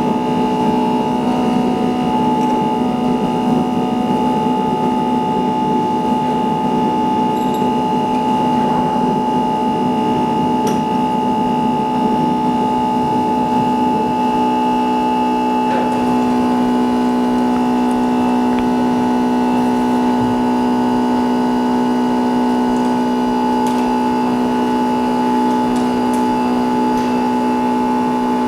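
Steady electric hum of a phone screen repair machine running, made of several fixed tones whose mix shifts slightly about halfway, with a few faint ticks over it.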